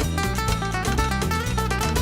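Acoustic guitars playing a quick flamenco-style instrumental passage, rapid plucked notes over a low bass line.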